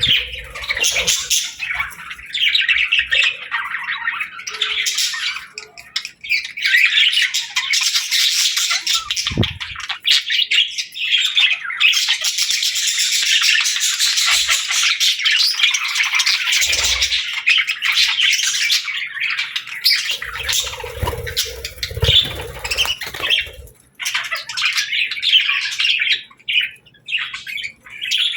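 A group of budgerigars chattering, chirping and squawking all at once without a break.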